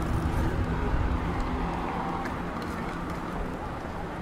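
City street traffic: a motor vehicle's engine rumbling close by, loudest in the first second or so and then easing off, over a steady urban hum.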